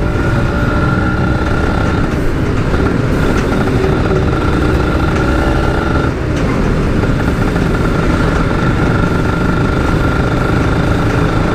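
Motorcycle engine running steadily under way, with a brief dip in level about six seconds in.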